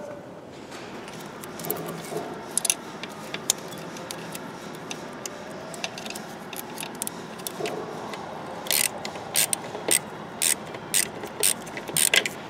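Metal hand tools clinking, then near the end a run of sharp ratchet-wrench clicks about two a second as the replacement starter's mounting bolt is tightened.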